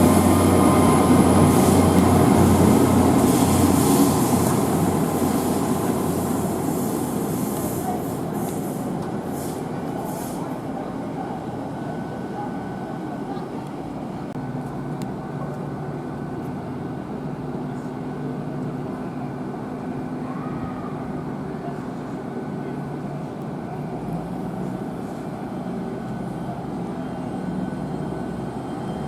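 A train running past, loud for the first few seconds with a high whine, then fading away into a steady background rumble.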